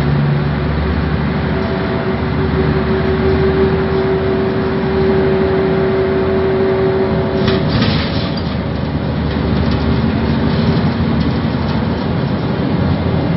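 Scania ELVO C93 city bus under way, heard from inside the passenger cabin: diesel engine and drivetrain running with road noise. A steady whine runs through the first half and stops about seven and a half seconds in, with a short rattle at that point.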